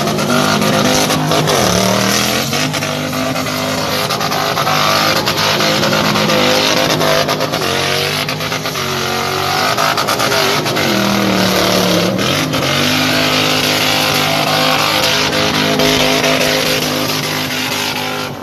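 V8 engine of a 1985 Toyota Hilux pickup revved hard during a drift, the revs dropping and climbing again a few times, with the rear tyres spinning and squealing in a burnout.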